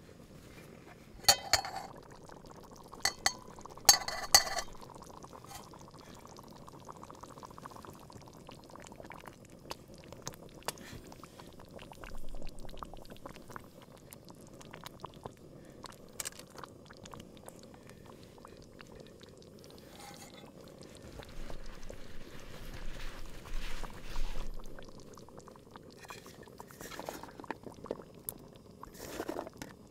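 An aluminium pot lid clinks several times in the first few seconds as it is taken off the billy pot, then beef stew simmers with a steady low bubbling. A wooden spoon stirs through it, and chopped vegetables drop in near the end.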